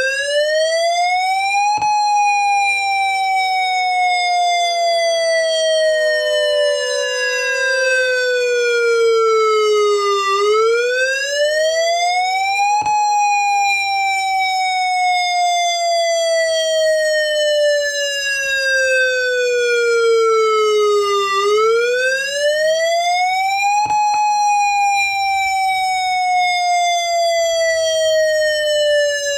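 Outdoor warning siren sounding a wail during a system test. The pitch rises sharply over about two seconds, then falls slowly over about nine, three times over, with a click at each peak. A fainter second siren tone sounds underneath.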